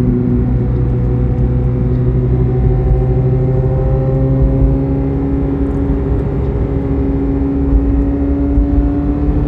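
Chevrolet Corvette C8 Z06's flat-plane-crank V8 running under light load with road rumble, its engine note steady at first and then rising slowly in pitch from about four seconds in as the car gently speeds up.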